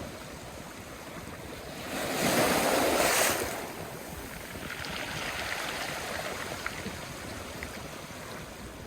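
Sea waves washing on the shore, one wave surging in louder about two seconds in for a second and a half, then a steady softer wash.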